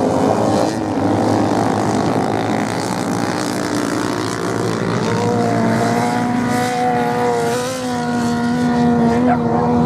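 Off-road racing motorcycle engines running on a beach sand course, several bikes together at first. From about five seconds in, one bike's engine drone stands out steady and clear, its pitch wavering slightly with the throttle.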